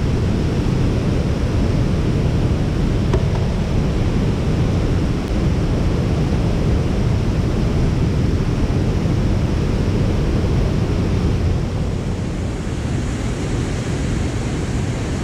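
Steady rush of water pouring over a concrete dam spillway, mixed with wind buffeting the microphone.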